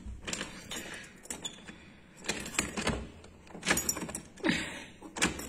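Keys jangling in a doorknob lock, with irregular clicks and knocks as the knobbed door is handled and opened.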